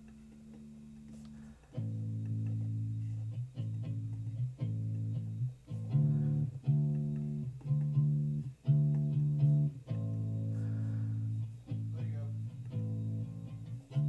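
Recorded electric bass guitar track played back on its own: a line of plucked notes, each starting sharply and dying away, with audible string noise.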